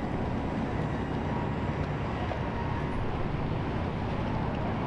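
Steady low rumble of a watercraft engine idling as it comes in to the dock.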